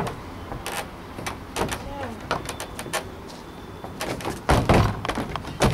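A football being played in a garden: scattered taps and scuffs, then several heavy thuds from about four and a half seconds in, the loudest near the end, as the ball is kicked at a small goal.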